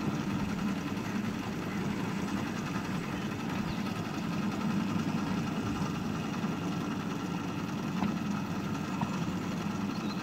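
Engine of a miniature railway shunter (Eccleshall No.3) running steadily at a low, even pitch.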